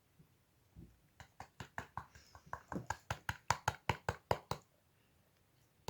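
A quick run of light taps on a small glitter container as blue glitter is shaken out of it, about five or six a second, growing louder midway and then stopping.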